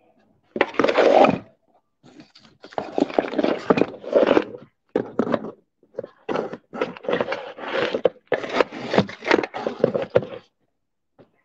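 Irregular bursts of scraping, rustling noise, consistent with a phone or camera being handled and rubbed close to its microphone while it is moved about at a window. The bursts come and go for most of the stretch, with short silent gaps between them.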